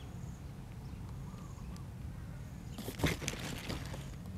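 A short burst of crackling, crunching clicks about three seconds in, as crisp food is bitten and handled close to the microphone, over a steady low wind rumble on the microphone.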